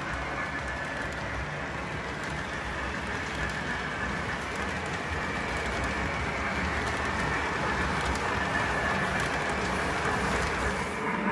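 Lionel O-gauge model train with the Santa Fe 2926 4-8-4 steam locomotive running on three-rail track: a steady rumble of wheels as the passenger cars roll past.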